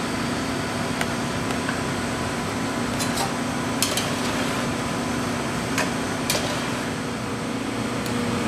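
Steady whir of kitchen ventilation running, with a handful of sharp taps and clicks of a utensil against a stainless steel saucepan as the cream is worked into the soup.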